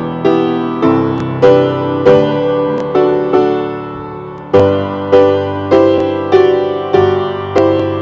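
Piano playing a slow piece, with chords struck about every half second, each ringing and fading, and a brief pause about halfway through.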